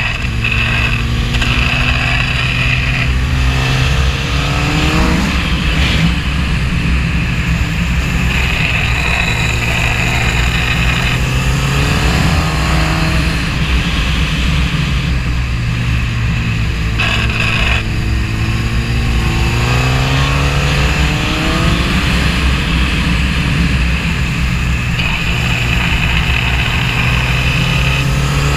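Suzuki GSX-R 1000's inline-four engine under way at speed, its revs climbing in a rising whine about four times as the bike accelerates, then settling back to a steadier note between.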